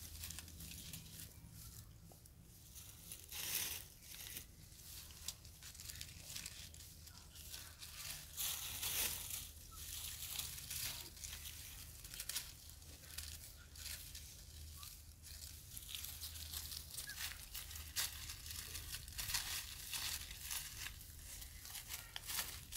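Dry fallen leaves crackling and rustling in irregular bursts as macaques forage and move through the leaf litter, with a few louder crunches.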